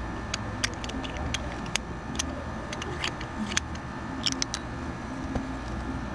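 Scattered small, sharp clicks and taps at irregular spacing as a wristwatch's unscrewed case back is lifted off and handled and tweezers touch the movement, over a steady low hum.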